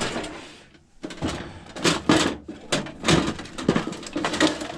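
Irregular clatter and knocks of things being handled and moved about, like rummaging in a drawer or cupboard for a tool.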